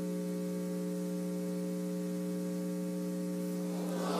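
Steady electrical mains hum with a stack of overtones, unchanging throughout; other noise starts to swell just at the end.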